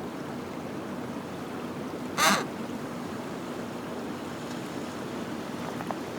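A penguin gives one short, harsh call about two seconds in, over a steady rushing background.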